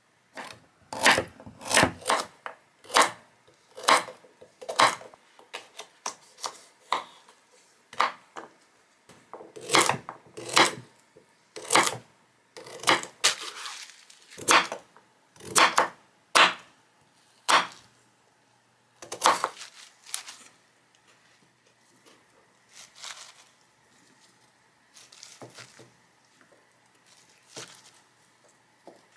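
Kitchen knife chopping radish greens and ponytail radishes on a wooden cutting board: sharp, irregular strikes about once a second, which turn fainter and sparser in the last third.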